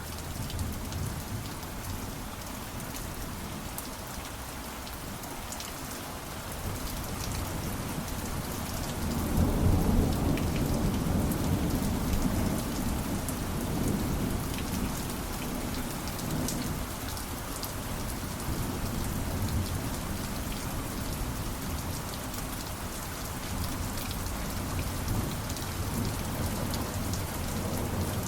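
Steady rain falling, with a long roll of thunder that swells about nine seconds in and rumbles on, slowly fading.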